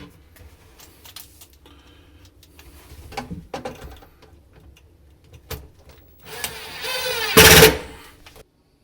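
A few light knocks and clicks of parts being handled, then a drill/driver runs for about two seconds, driving a screw home, with its loudest moment just before it stops suddenly near the end.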